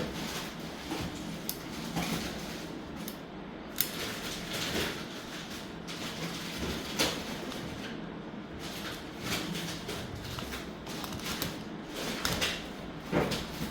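Irregular clicks, knocks and short scrapes of small hard objects being handled, with sharper clicks about four, seven and thirteen seconds in.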